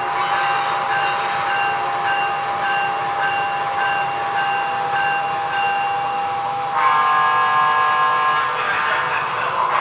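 Sound system of Broadway Limited Paragon 3 model PRR P5a electric locomotives running under a freight train: a steady electric whine over track rumble, with a faint pulse about twice a second. About seven seconds in, a horn blast sounds for about a second and a half.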